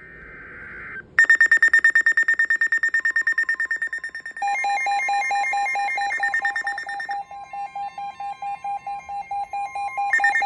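Electronic emergency alert tones for a tornado warning: a short buzzy burst, then rapid pulsing high beeps. About four seconds in, a lower pulsing beep joins them and overlaps. The high beeps stop about seven seconds in and start again near the end.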